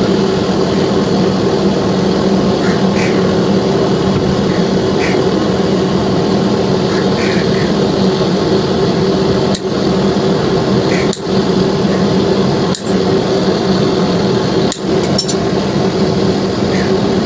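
A steady machine hum with a few short sharp clicks in the second half.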